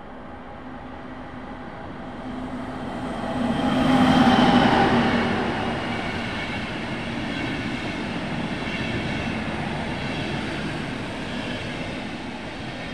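Deutsche Bahn Intercity train passing close by: the locomotive's approach swells to its loudest about four seconds in, then the coaches roll past with a steady rolling noise that fades only slightly.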